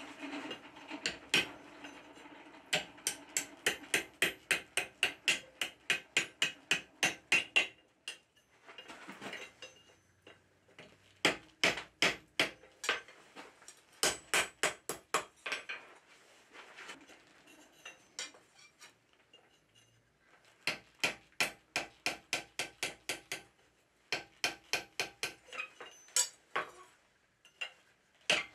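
Hand forging hammer striking a red-hot steel bar on an anvil, curling the bar's end into a hook. The blows come in quick runs of about three a second, each with a ringing metallic clang, with short pauses between runs.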